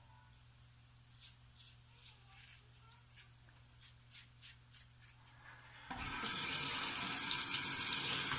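Faint short scratchy strokes, then about six seconds in a tap is turned on and water runs loudly into a bathroom sink.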